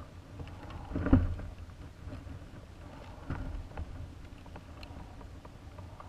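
Muffled knocks and rubbing from a high-altitude balloon payload box as it swings and turns, picked up by its onboard camera, with a low rumble underneath. One louder thump comes about a second in and a couple of smaller knocks a few seconds later.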